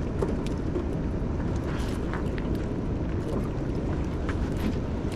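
Steady low rumbling noise of wind and water around a small fishing boat on a river, with a scattering of light clicks and knocks.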